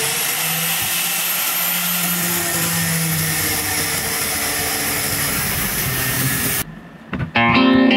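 Electric angle grinder running at full speed, its cutting disc slicing through a small metal bar, with a steady high whine over a loud rasping noise. The sound cuts off suddenly about six and a half seconds in, and guitar music starts near the end.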